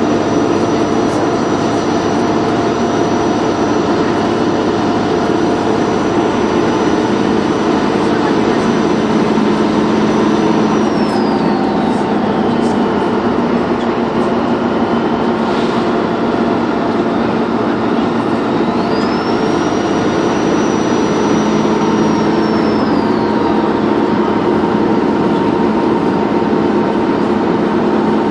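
Dennis Trident 2 double-decker bus engine running under way with a high, steady turbocharger whistle over the engine drone. The whistle drops in pitch a little under halfway through, climbs back up about two-thirds of the way in, and falls away again soon after as the turbo spools down and up.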